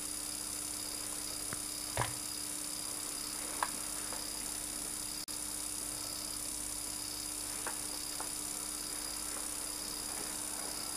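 Steady hum and hiss of an old camcorder recording, with a few faint clicks or knocks, the clearest about two seconds in.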